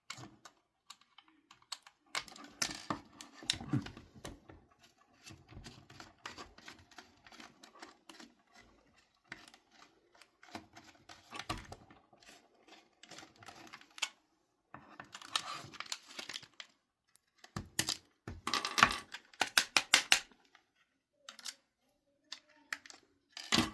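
Irregular clicking and scraping of a small hand screwdriver working Torx security screws out of an Xbox Series X controller's plastic shell, with a quick run of clicks a little after two-thirds through.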